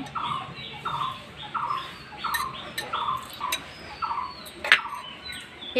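A small animal chirping over and over, short calls about one every three quarters of a second, each falling slightly in pitch. One sharp click sounds a little before the end.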